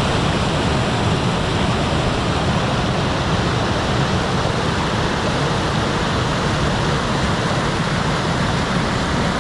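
River rapids rushing over and between rocks: a loud, steady rush of whitewater.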